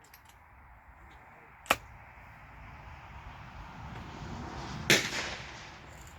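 Two gunshots about three seconds apart, the second louder and followed by a short echo, over a hiss that grows through the middle.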